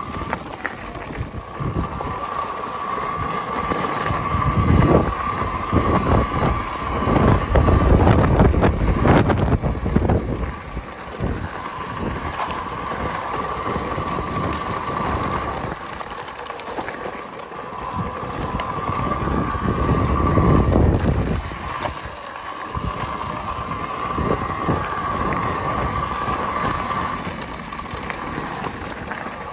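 Talaria electric dirt bike riding along a gravel path: the motor gives a steady high whine that drops out and comes back several times, over the rough rumble of tyres on gravel and wind buffeting the microphone, which swell louder twice.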